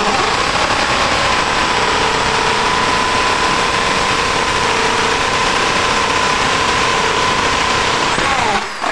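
AEG SB 500 RE impact drill running at full speed, boring a hole into a wooden board with a spade bit, its motor whine holding steady. Near the end the trigger is released and the motor winds down with a falling whine.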